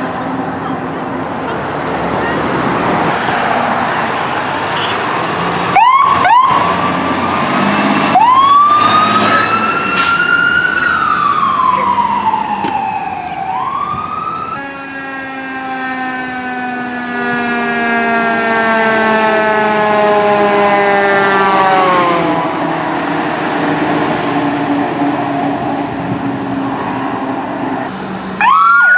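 Sirens of responding fire engines over heavy truck engine noise. Two short rising chirps about six seconds in lead into a long wail that climbs quickly and then slowly falls. After that, a siren slowly winds down in pitch, and a fast electronic yelp siren starts near the end.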